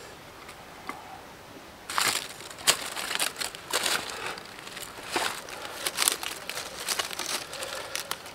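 Dry leaves and twigs rustling and crackling as they are handled and broken up by hand, with sharp snaps, starting about two seconds in.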